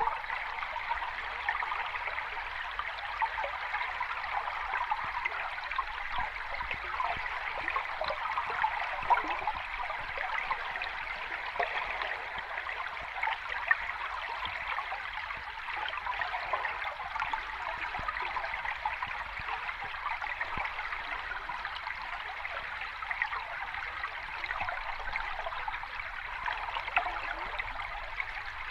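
Running water splashing and babbling steadily over rocks, as from a stream or small cascade, with fine splashy detail and little low rumble.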